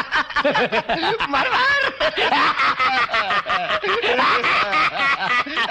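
A man laughing hard in rapid, repeated bursts, with a shouted word about two seconds in.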